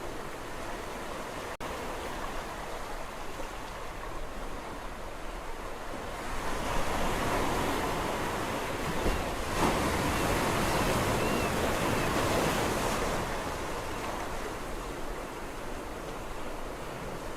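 Sea waves washing on the shore. One larger wave swells up about six seconds in, holds for several seconds, then falls back to a steady wash.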